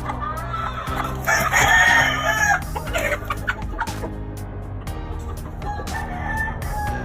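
Game rooster crowing loudly about a second in, with a fainter rooster call near the end.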